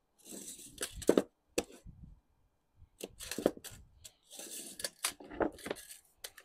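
A Stanley steel tape measure being handled on a sheet of lead: the blade drawn out and slid and lifted, making several short bursts of metallic rattling and scraping with sharp clicks.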